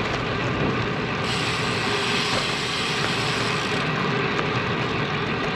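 Steady wind rush on an action camera's microphone with road bike tyres rolling on asphalt; a brighter hiss joins in for a couple of seconds in the middle.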